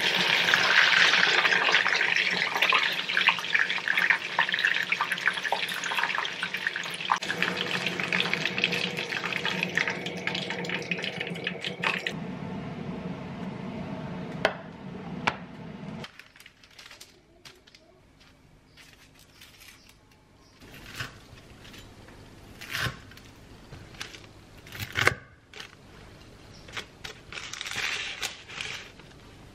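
Breaded chicken thigh cutlet deep-frying in oil: a loud, steady sizzle that cuts off about twelve seconds in. After it come a few light knocks and taps.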